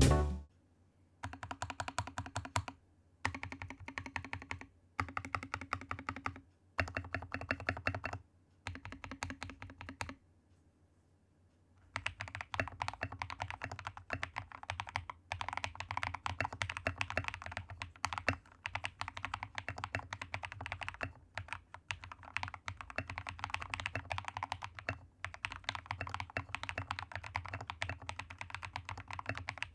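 Typing on a modded Royal Kludge RK61 mechanical keyboard with hand-lubed Akko V3 Cream Yellow and Ajazz Kiwi switches, tape-modded, PE-foam-modded and case-foamed, with lubed stabilisers. Five short spells of typing in the first ten seconds, then a pause of about two seconds, then steady typing with brief breaks.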